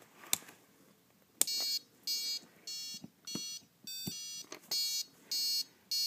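A click, then a piezo buzzer on a Super Bee gas RC kill switch giving short, high-pitched beeps, one about every 0.6 s, starting about a second and a half in, as the unit's glitch-sensitivity setting is stepped to level 2.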